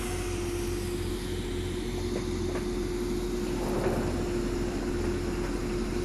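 Farm tractor engine running steadily, a constant low drone with a steady whine on top and a brief louder swell just under four seconds in.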